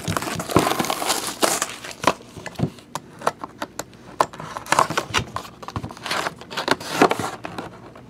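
Plastic shrink wrap on a cardboard trading-card box being slit with a folding utility knife and pulled off as the box is handled: irregular crinkling and rustling with small clicks and knocks.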